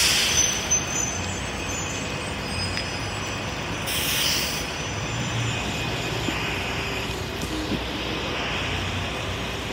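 City buses and traffic running on wet, flooded pavement: a steady wash of engine hum and tyre noise, with two short hisses about four seconds apart.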